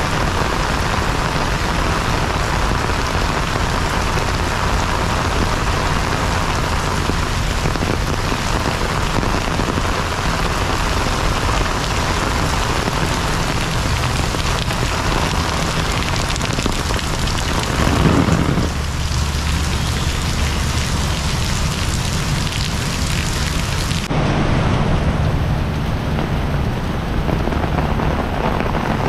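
Heavy rain pouring onto wet pavement and puddles: a steady, loud hiss of splashing drops. About 24 seconds in the sound changes abruptly and becomes duller.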